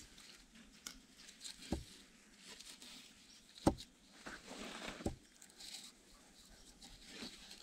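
Twine being pulled and wrapped around wooden log posts by a gloved hand: rustling and scraping of cord and glove on bark, with a few sharp knocks, the loudest about three and a half seconds in.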